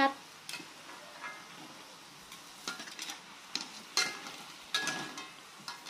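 Cassava balls frying in hot oil in a wok, a quiet steady sizzle, with scattered clinks and scrapes of a metal wire spider strainer against the wok as the golden, cooked balls are scooped out of the oil.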